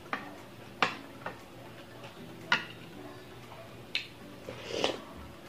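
Eating sounds of a close-miked meal with a spoon: about six sharp, separate clicks spaced unevenly, with a short wetter smacking sound just before the end.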